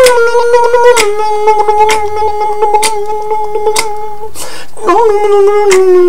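Human beatboxing: a held, hummed tone with a reedy, instrument-like colour that steps down in pitch, under sharp mouth clicks about once a second. The tone breaks for a short breathy rush about four and a half seconds in, then comes back lower.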